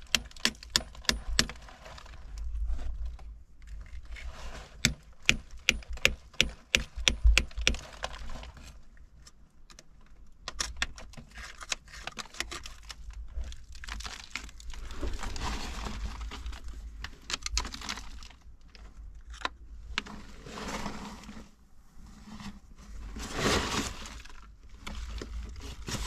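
Hand hammer striking a steel chisel against the rock of a vanadinite crystal pocket: quick sharp metallic taps, about three a second for the first eight seconds and briefly again around eleven seconds. Later come rougher scraping noises as the tool pries at the rock.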